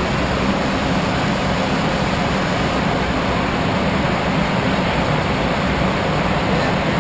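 Steady cockpit noise of a private jet in flight: an even, unbroken rush of air with a low hum underneath.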